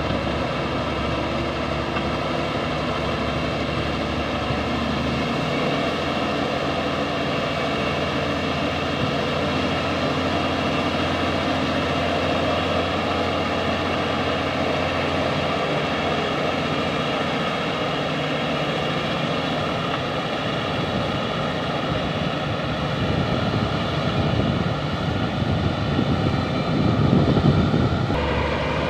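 Bulldozer's diesel engine running steadily, its pitch stepping down a couple of times, with a louder, rougher stretch near the end and a sudden shift in tone just before it ends.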